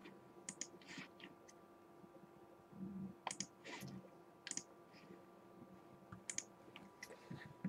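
Faint, scattered light clicks and taps of trading cards being handled, flicked through and laid down on a table, over a faint steady hum.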